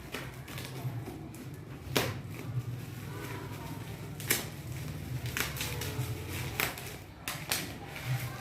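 Handling noise: a few sharp clicks and knocks, a second or two apart, over a steady low hum.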